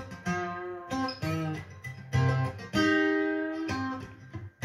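Recorded song in an instrumental passage between vocal lines: plucked guitar notes played one after another in short phrases, each note ringing briefly before the next.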